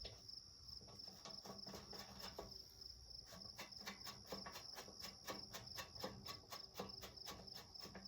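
A cricket chirping steadily in a fast pulsing trill, with a quick run of small sharp clicks starting about three seconds in.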